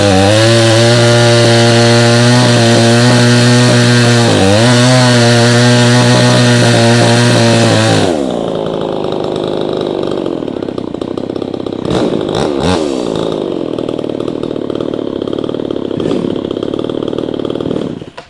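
Two-stroke chainsaw running loud and steady at high revs; about eight seconds in its pitch suddenly drops and the sound turns lower and rougher, with a couple of quick revs a few seconds later, then it cuts off suddenly just before the end.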